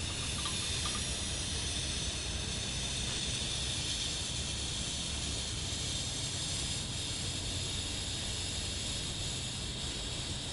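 DC TIG welding arc from a Miller Multimatic 255 running at 75 amps on 14-gauge material: a steady hiss.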